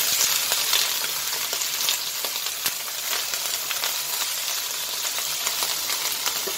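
Freshly added broccoli and fried chicken nuggets sizzling in hot oil in a wok while a spatula stirs them, with frequent light clicks and scrapes of the spatula against the pan.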